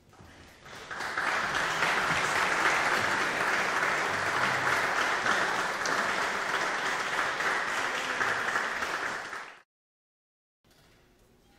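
Audience applauding, the clapping swelling about a second in and cutting off abruptly near the end.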